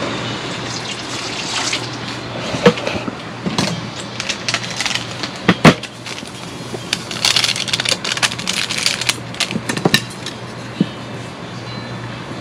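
Warm water poured into a mixing bowl and the bread-dough mix stirred, with scattered clinks and knocks, the sharpest about three and six seconds in.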